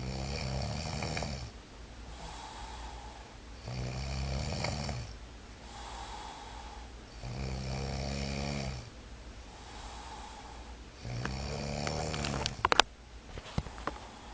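A sleeping person snoring rhythmically: four loud, low, rattling snores on the in-breath about every three and a half seconds, with quieter out-breaths between. Near the end a few sharp clicks or taps cut in, the loudest moments.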